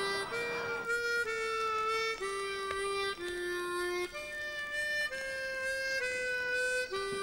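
Background music: a slow melody of long held notes on a harmonica, moving to a new note about once a second.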